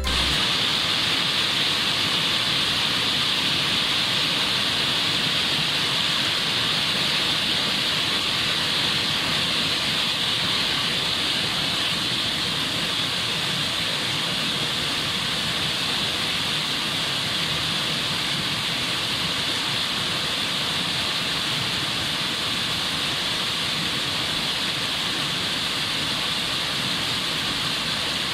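Stream rushing over boulders in white-water rapids: a steady, unbroken rush of water.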